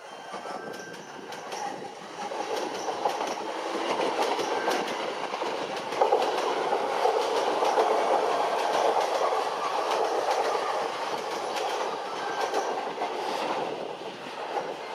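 JR East E233-1000 series electric train rolling past as it pulls into the station, with a steady rumble of wheels on rail and frequent clicks as the wheels cross rail joints. The noise builds, jumps to its loudest about six seconds in, and eases off near the end as the train slows.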